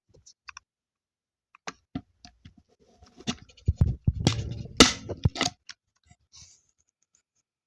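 Arrow T50X heavy-duty manual staple gun handled against a block of dense wood, with scattered clicks and rubbing, then fired once about five seconds in with a single sharp snap as it drives a staple into the wood.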